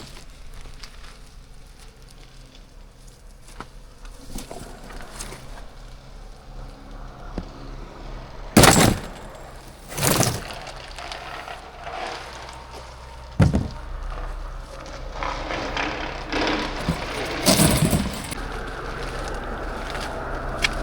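Steady low engine hum of a road grader with a mower clearing the roadside ditches, swelling over the second half. Four loud knocks and several smaller ones sound over it, spaced a few seconds apart.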